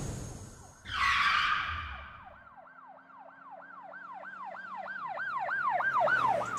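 Intro sound effects: a whoosh about a second in, then a siren-like yelp, a tone sweeping up and down about three times a second and growing louder.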